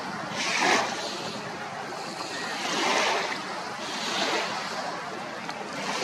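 Small waves washing up onto a sandy beach: a steady hiss of surf that swells four times, the first surge about half a second in the loudest.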